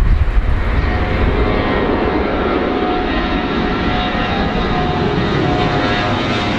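Four-engined Airbus A340 airliner's jet engines running at takeoff power as it climbs out overhead: a loud, steady jet roar with a faint whine of the engine fans running through it.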